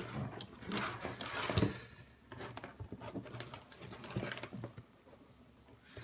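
Loose insulated wires of a Subaru wiring harness rustling, scraping and clicking as they are sorted and pulled apart by hand, in short irregular bursts.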